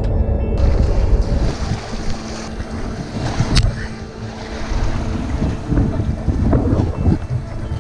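Wind buffeting the chest-mounted GoPro microphone in a heavy, uneven rumble, with surf washing against the jetty rocks. A single sharp click comes about three and a half seconds in.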